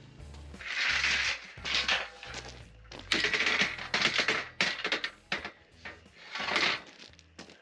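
Galvanized steel Unistrut channel being slid and handled across wooden sawhorses: several separate bursts of metal scraping and rattling, the longest about a second and a half.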